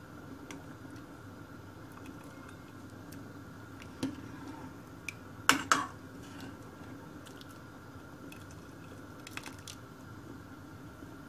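Metal ladle stirring soup broth in a stainless steel pot: liquid sloshing, with a few sharp clinks of the ladle against the pot, the loudest pair about halfway through, over a steady hum.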